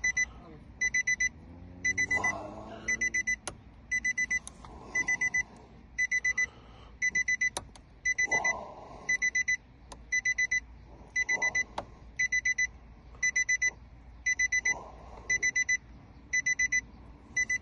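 Electronic alarm beeping in quick groups of four, one group about every second, without letup. Between the beeps come a few sharp clicks and some rustling.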